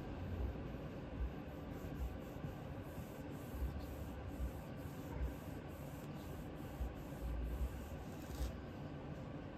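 A cloth rubbing back and forth along a Remington 1100 shotgun's steel barrel in repeated strokes, with a few light handling bumps. The cloth is working the barrel while cold bluing solution is applied.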